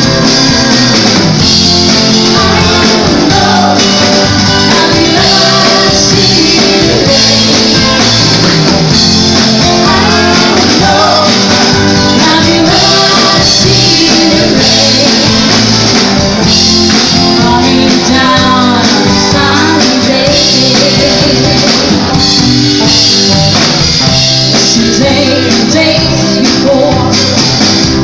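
Live band playing a rock song: a woman sings lead over strummed acoustic guitars and a drum kit, with a steady jingling tambourine-like beat.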